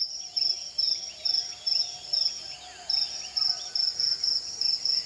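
A cricket chirping steadily, about two high chirps a second, with faint gliding whistled calls behind it.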